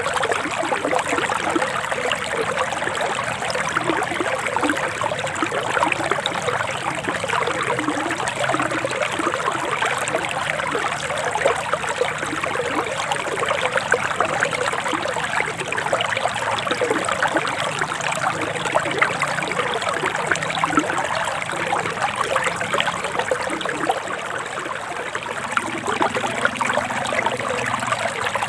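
Forest river water flowing, a steady babble with no letup.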